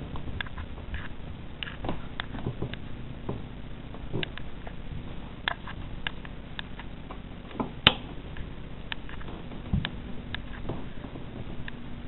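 Handling noise from a handheld digital camera carried through a room: scattered, irregular light clicks and taps, with one sharper click about eight seconds in.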